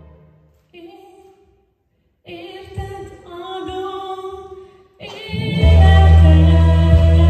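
A woman singing solo in Hungarian into a microphone: after a near-silent pause she sings a few soft held notes, then a loud full accompaniment with deep bass comes in about five seconds in.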